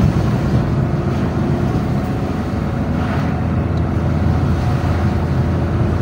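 Steady engine drone and road rumble heard from inside a moving car's cabin.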